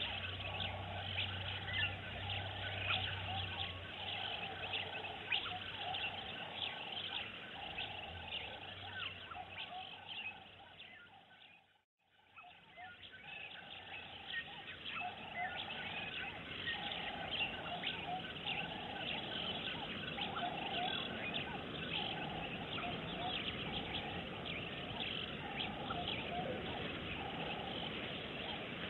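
Dense outdoor chorus of many birds chirping and calling, with a pulsing lower chatter under it. It fades out briefly about twelve seconds in and fades back up.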